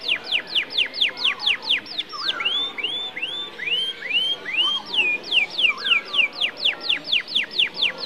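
Domestic canary singing: fast runs of quick downward-sweeping notes, about five a second, broken in the middle by a slower phrase of arched notes that rise and fall, then the fast descending notes again.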